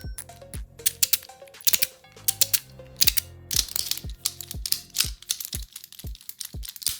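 Fidget toys clicking and ratcheting in quick runs of sharp clicks, over background music with a steady beat.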